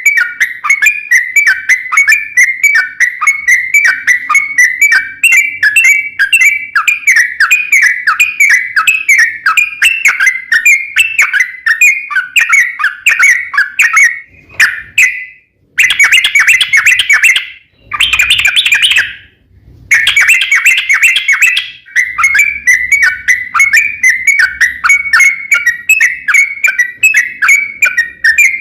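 Yellow-vented bulbul (trucukan) singing a long, rapid run of chirping whistled notes, several a second, with a few short breaks about halfway through.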